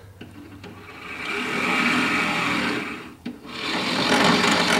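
Scratch-built RC bulldozer's two electric drive motors running its tracks in opposite directions to turn, a whirring, grinding run of motors, gears and tracks. It swells up and dies away twice, with a short break about three seconds in.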